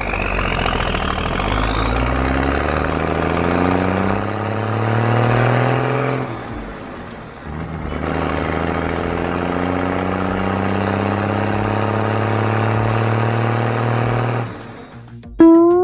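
A truck engine sound effect accelerating, its pitch climbing steadily. It fades out about six seconds in, starts climbing again a second or so later, and cuts off abruptly near the end, followed by a short, sudden loud sound.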